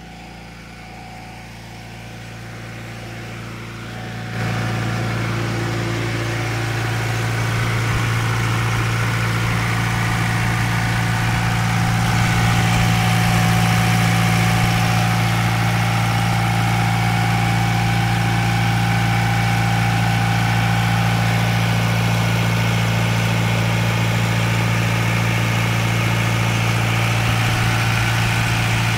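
Stationary John Deere diesel engine running loud and steady at constant speed, powering a deep-well irrigation pump. The engine sound jumps up about four seconds in and grows a little more, then holds even.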